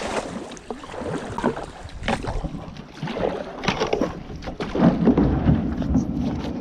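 Kayak paddle dipping and pulling through the water, with irregular splashes and drips from the blades. From about five seconds in, wind buffets the microphone with a low rumble.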